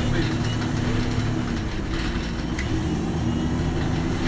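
MAN NL255 city bus engine running with a steady low drone, heard from inside the bus, with a few faint clicks and rattles.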